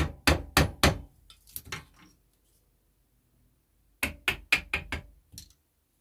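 Hammer blows in quick succession, about three a second, in two runs separated by a pause of about two seconds; the later run is slightly weaker.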